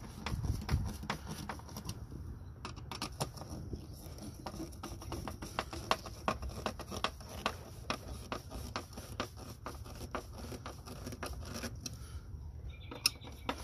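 Dense run of light, irregular clicks and scrapes as T20 Torx screws are driven into the plastic air filter housing lid with a small hand driver.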